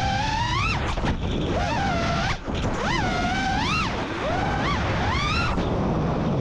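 FPV racing quadcopter's brushless motors whining in flight, the pitch surging up and falling back sharply again and again as the throttle is punched and chopped through flips and rolls. Wind rushes over the onboard camera's microphone.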